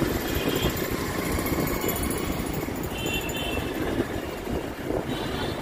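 Steady traffic noise of a busy city road: motorcycle and scooter engines running. Two short, high horn toots sound about half a second in and about three seconds in.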